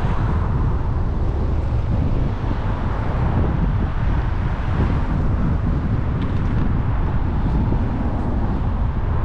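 Wind buffeting the microphone of a camera on a moving bicycle: a steady, rumbling rush of noise.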